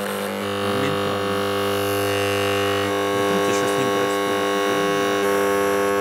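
Microwave-oven transformer, rewound with a few turns of thick wire for high current, humming loudly and steadily as it drives current through a steel wrench shorted across its secondary, heating the wrench red hot.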